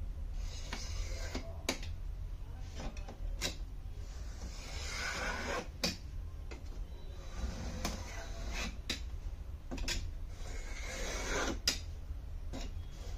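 A cutter blade scraping along the polarizer film of an LCD panel as it is scored free at the edges, in three longer scratchy strokes with sharp clicks and taps between them. A steady low hum runs underneath.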